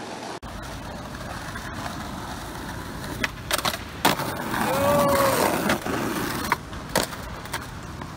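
Skateboard wheels rolling on pavement, with sharp clacks of the board popping and landing three to four seconds in and again about seven seconds in, the loudest about four seconds in. A short rising-and-falling yell about five seconds in.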